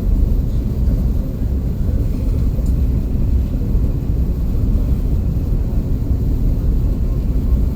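Steady low rumble of a KTX high-speed train heard from inside the passenger carriage as it runs.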